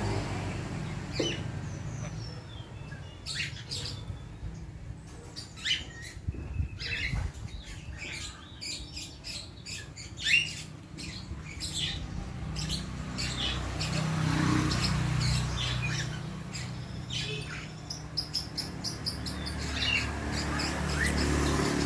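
Hill myna calling: a string of short, sharp chirps and whistles at irregular intervals, over a low steady hum.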